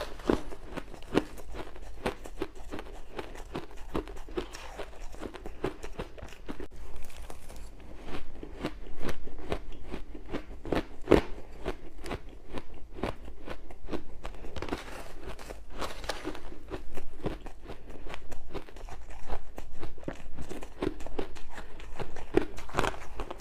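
Ice being bitten and crunched between the teeth, close to the microphone: a steady run of sharp cracks and crunches, several a second, with a few louder bites.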